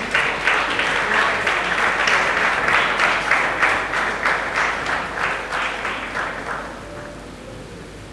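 Audience applauding, a dense run of hand claps that thins out and dies away about seven seconds in.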